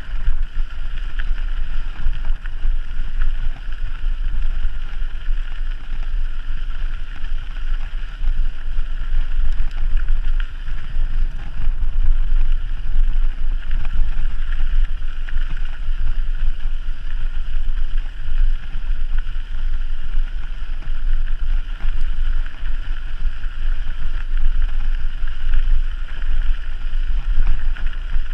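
Wind buffeting the microphone during a mountain bike ride: a steady, gusting low rumble with a constant hiss over it.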